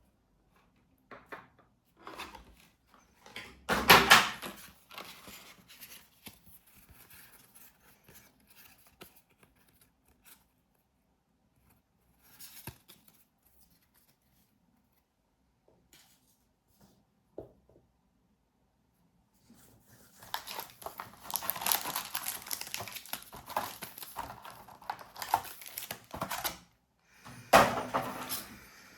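Packaging being torn open and crinkled by hand: one loud rip about four seconds in, scattered small handling sounds, then a long run of crinkling from about twenty seconds in and another sharp burst near the end.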